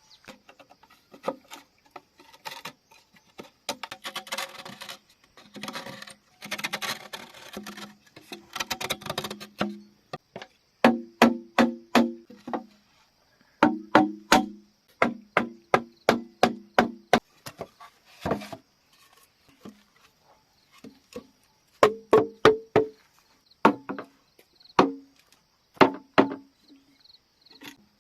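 Hollow bamboo being chopped with a blade, each blow a sharp knock with a short hollow ring, coming in quick runs of about three or four a second, with a rougher scraping stretch early on. A faint steady high insect hum runs underneath.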